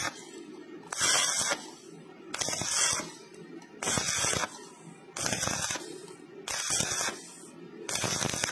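Stick-welding arc crackling in short bursts, struck and broken about once every 1.3 seconds: intermittent point-by-point welding on thin metal, done to avoid burn-through. Each burst lasts under a second, with a steady low hum beneath.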